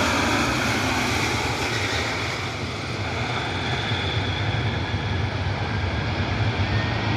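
Jet airliner engines running as the aircraft passes on approach: a steady low rumble with a hiss and a faint whine above it.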